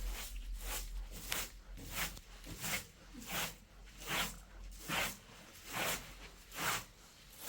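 Rhythmic rasping strokes, about a dozen in an even series, roughly one every three quarters of a second.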